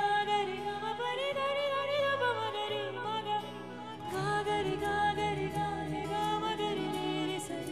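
Background music: a wavering melody line, voice-like, over sustained low notes that change every second or so.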